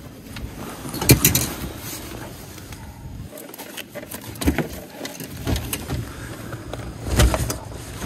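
Handling noise while a hook is worked out of a northern pike held in a landing net: gloves and jacket rustling against the camera, with a few sharp knocks about a second in, midway, and shortly before the end.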